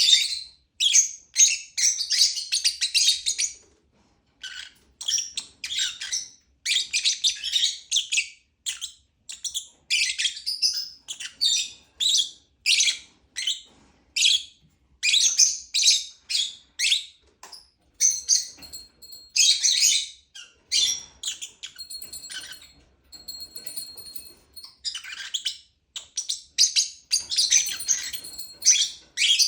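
Lovebirds chirping: rapid strings of short, high, shrill calls in bursts, with brief pauses between them.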